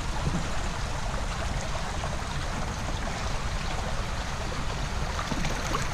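Steady rush of water in a shallow pool, with light sloshing as a clothed person lying in it moves about.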